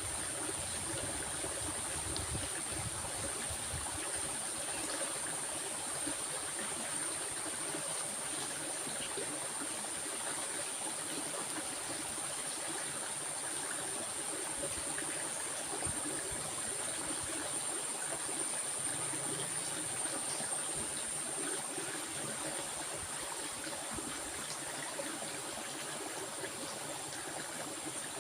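Stream water flowing and trickling steadily, with a thin, steady high-pitched hiss above it.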